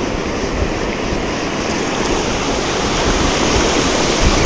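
Ocean surf washing onto the beach with wind rushing over the microphone, a steady noise that swells a little near the end.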